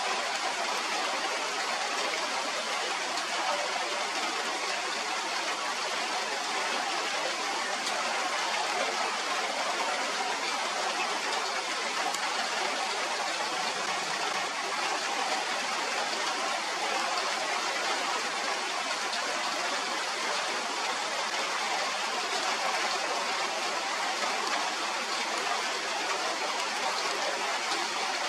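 Steady rainfall, an even hiss that does not let up.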